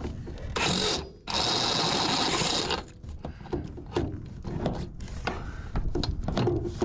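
Power drill spinning a step drill bit to enlarge a hole, in two bursts: a short one, then one of about a second and a half. Light clicks and knocks follow.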